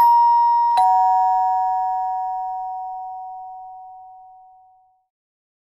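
Ding-dong doorbell chime: two struck notes, a higher one and then a lower one under a second later, each ringing on and fading away over about four seconds.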